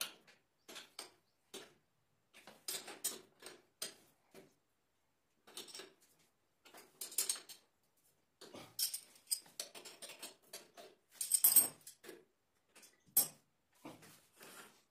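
Spanner clinking and scraping on the bolts of a bicycle chain tensioner as it is fitted and tightened: irregular metallic clicks and short rattles, busiest about eleven seconds in.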